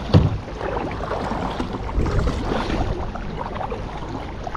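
Steady rush and splash of water around a kayak below a waterfall, with a single knock on the kayak just after the start.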